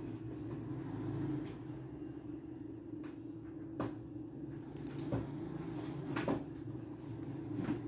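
Small neodymium magnet balls (buckyballs) clicking as they snap together and are pushed into place by hand, a handful of sharp clicks a second or so apart. A steady low background hum runs beneath them.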